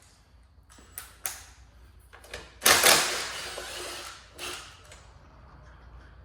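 Hands working on motorcycle parts and wiring: two sharp clicks about a second in, then a loud scraping rattle that fades over about a second and a half, and a shorter one soon after.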